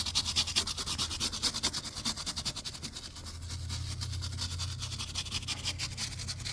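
Wire brush scrubbing the white raised letters on a tire sidewall: rapid, even back-and-forth scraping strokes, several a second.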